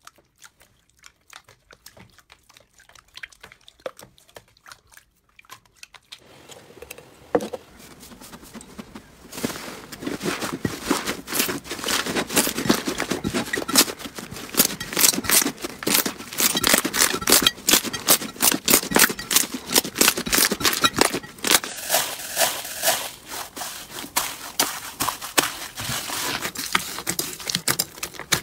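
Hands squeezing, pressing and stretching slime, giving a dense run of sticky crackles and small pops. It is faint and sparse at first, then louder and busier from about nine seconds in.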